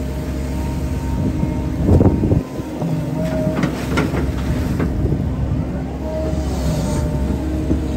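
Volvo hydraulic excavator running under load, heard from the cab: a steady engine hum with a mid-pitched hydraulic whine that comes and goes. The bucket scrapes and knocks into wet ditch soil, loudest about two seconds in, with a run of short knocks around four seconds.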